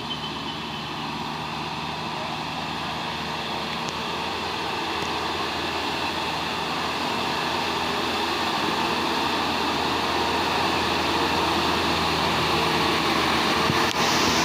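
Medium-size bus's diesel engine pulling up a steep incline, growing steadily louder as it approaches.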